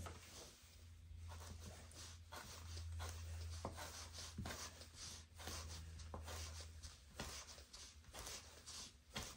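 Oknife Beagle folding knife chopping 550 paracord into short pieces on a plywood board: a string of short, faint snicks as the blade cuts through the cord and taps the wood, roughly two a second.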